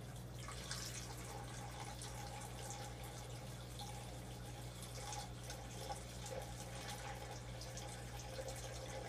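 Water pouring steadily from a plastic container into a small glass aquarium, a soft continuous trickle and splash, with a steady low hum underneath.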